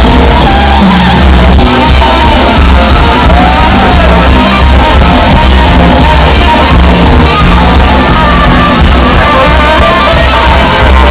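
Live band music played loud over a PA, with a singer, a steady bass line and drums, and people in the crowd shouting along.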